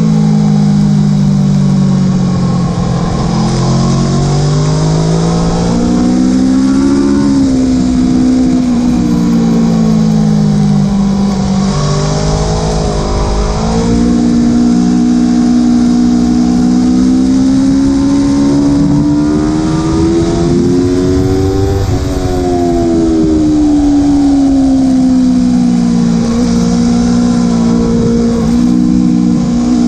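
Aprilia Tuono motorcycle engine at full race pace, heard onboard: revs climb under hard acceleration, then drop in quick steps as it is braked and shifted down. Midway a long steady climb in pitch lasts about eight seconds before falling away again.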